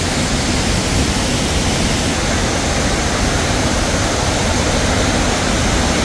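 Steady rush of water tumbling over rocks in the rapids of the stream below a waterfall.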